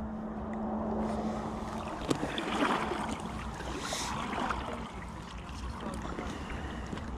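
Water splashing and sloshing around an inflatable kayak, with a few light knocks.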